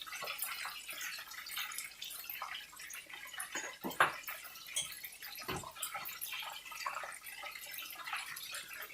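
Food sizzling and crackling in hot fat in a frying pan, a steady spatter of small pops. A sharp knock about four seconds in, with a few lighter knocks after it.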